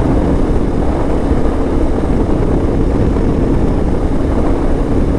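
Motorcycle engine running steadily at a constant cruising speed, mixed with a dense rush of wind noise on the microphone.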